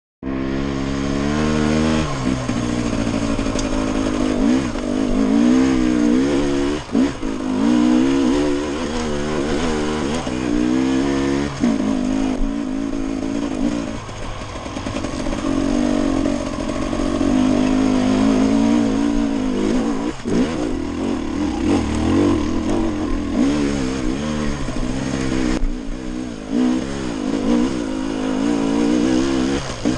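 Dirt bike engine being ridden hard, its pitch rising and falling over and over as the throttle opens and closes, with brief drops where the rider backs off.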